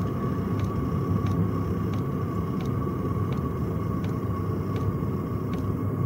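Chinese diesel parking heater running steadily: a low combustion and fan rumble with a steady whine on top, and a faint tick about every 0.7 s. The heater is in thermostat mode, its fan turned down because the external temperature sensor still reads warm.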